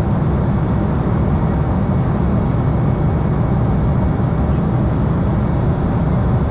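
Steady cabin noise of an Embraer 195 in flight, heard from a window seat beside the wing: the drone of its GE CF34-10E turbofan engines and the rush of air over the fuselage, with a faint tick about four and a half seconds in.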